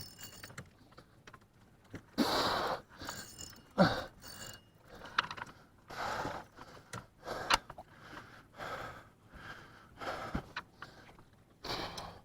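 Hard, uneven breathing of an angler straining against a big catfish on the line, with scattered clicks and rattles from the fishing reel and rod.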